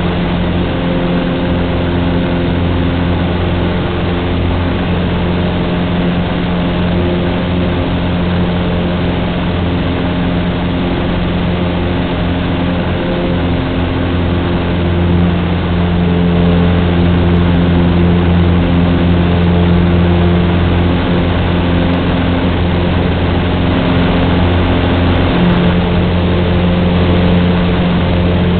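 Cessna 150's Continental O-200 four-cylinder engine and propeller running as a steady drone, heard from inside the cockpit, getting a little louder about halfway through.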